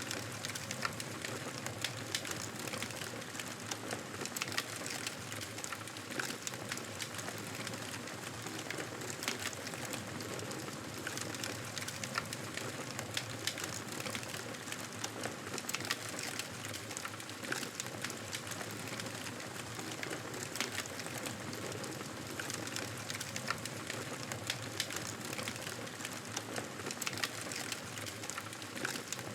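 Campfire burning, wood crackling with a steady hiss and frequent sharp pops scattered throughout.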